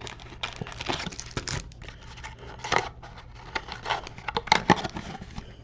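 Foil trading-card pack wrapper crinkling and cards being handled by hand: scattered rustles, scrapes and light clicks at an uneven pace, over a faint steady low hum.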